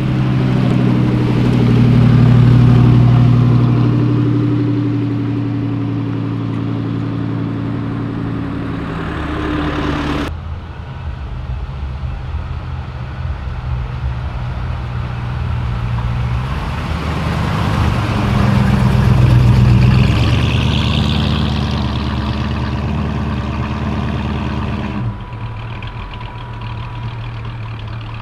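Car engines running at low revs as cars drive slowly past one after another, each growing louder as it comes close. The sound changes abruptly twice, about a third of the way in and near the end.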